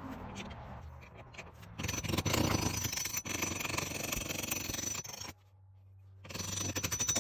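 Oregon 410-120 bench chain grinder running, its wheel grinding a chainsaw chain's cutters in two long stretches, the second starting about six seconds in. Between them the grinder motor hums steadily on its own for about a second.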